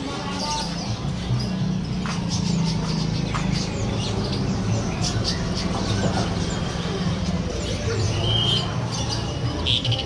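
Caged birds chirping and calling in scattered short notes, with a couple of clearer high chirps near the end, over a steady low hum.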